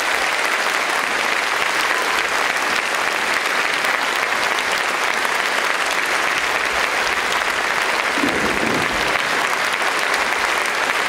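Concert-hall audience applauding steadily at the close of a performance.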